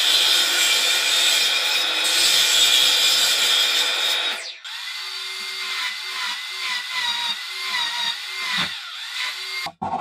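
Power tool working wood: a loud, dense machining noise for about four and a half seconds, then it drops away to a quieter, steadier motor whine with a short repeating pulse.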